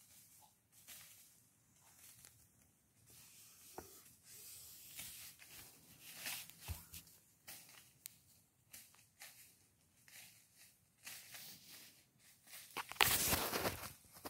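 Dry leaves and brush rustling and crackling with the hunter's movements, with scattered soft snaps and a louder stretch of rustling near the end.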